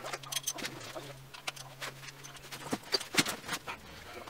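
Scattered clicks and knocks of tools and parts being handled during an oil change, busiest about three seconds in, over a steady low hum that stops about two and a half seconds in.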